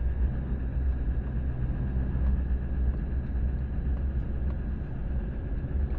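Steady engine and road rumble of a vehicle being driven, heard from inside the cabin.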